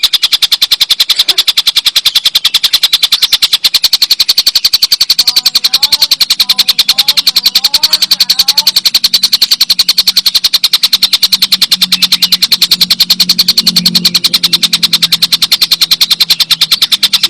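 Kingfisher (tengkek buto) giving its long, loud cackling call: a fast, even rattle of sharp 'kek' notes that never breaks. Faint chirps from other birds come in about six seconds in.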